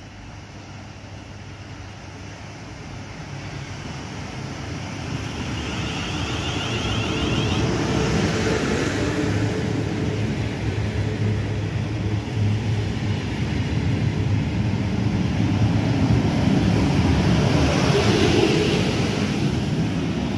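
A train approaching and running through the station: a steady rumble of wheels on rail with a low hum, building over the first eight seconds or so and staying loud.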